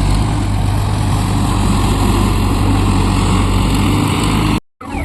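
Heavy diesel engine of a lifting machine running steadily with a deep hum. It cuts out abruptly near the end.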